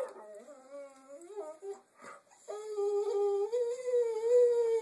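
Dog whining while begging for food: a few faint short whines in the first two seconds, then a long drawn-out whine from about halfway that rises slightly in pitch.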